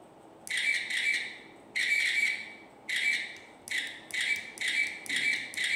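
A tiny pencil stub twisted in a small handheld pencil sharpener, making repeated scraping strokes. The first strokes are longer, then they come quicker and shorter, about two a second near the end.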